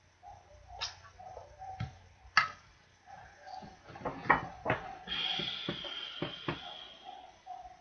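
Scattered clicks and knocks, several coming close together in the middle, with a short hiss starting about five seconds in and lasting about two seconds.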